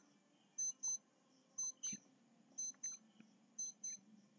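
Short electronic beeps in pairs, one pair about every second, four pairs in all, like a quiz countdown timer ticking off the answering time.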